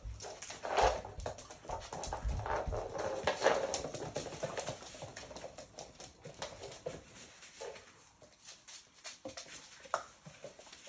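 Labrador puppies playing: claws clicking and scrabbling on a laminate floor, with puppy vocal noises through the busier first few seconds, then quieter scattered paw clicks and a sharper knock near the end.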